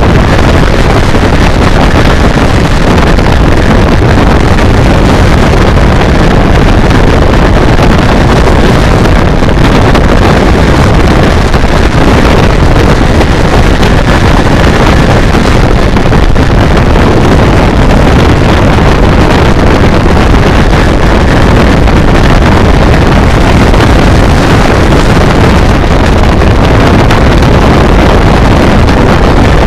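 Heavy, steady wind roar on the microphone of a motorcycle at cruising speed, with the BMW K1200R Sport's inline-four engine running at a constant mid-range pace underneath.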